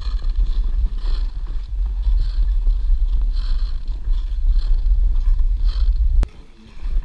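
Ice skate blades scraping across outdoor ice in strides about once a second, under a heavy low rumble of wind buffeting the camera microphone. A sharp click comes about six seconds in, after which the rumble drops away.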